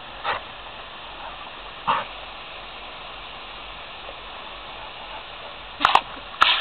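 Garden hose spraying water with a steady hiss. A brief sharp sound comes about two seconds in, and a couple of sharp clicks or splashes come near the end.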